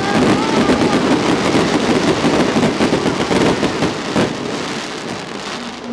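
Aerial fireworks going off in rapid succession: a dense crackle of many small bangs, with a sharper bang about four seconds in. The crackle thins out near the end.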